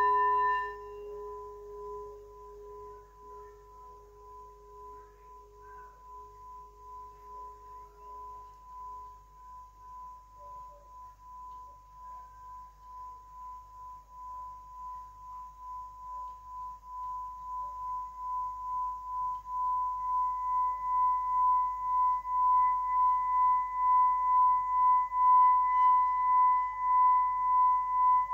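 Singing bowl struck once with a mallet, then played by circling the mallet around its rim. The strike rings with a low and a higher tone; the low tone dies away over about nine seconds while the higher one sings on, wavering and swelling steadily louder, with a faint higher overtone joining about two-thirds of the way through.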